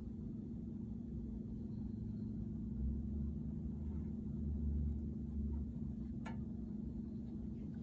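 Room tone: a steady low hum, with a low rumble that swells twice and a single click about six seconds in.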